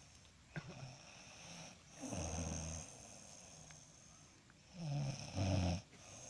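A person snoring in uneven, loud bursts: one low buzzing snore about two seconds in, and two more in quick succession near the end.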